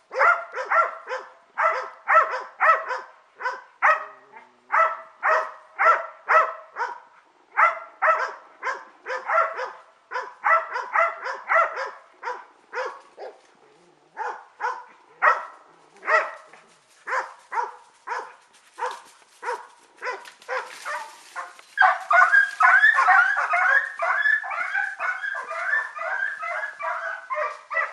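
Segugio Maremmano hounds barking at bay (abbaio a fermo), the steady repeated barking that tells the hunter the quarry is held at a standstill: a run of barks about two to three a second. About three quarters of the way through the barking turns dense and near-continuous.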